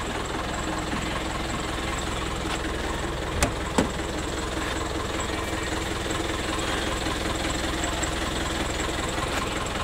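Diesel engine of an Eicher 10.50 minibus idling steadily, with two light clicks about three and a half seconds in.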